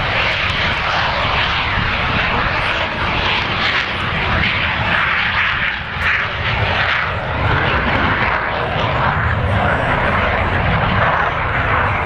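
Jet aircraft engine roar, loud and steady, with a brief dip in level about six seconds in.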